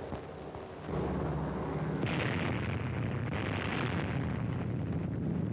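An atomic bomb explosion on an old film soundtrack. A blast comes in suddenly about a second in and carries on as a long, heavy rumble, with two louder hissing surges in the middle.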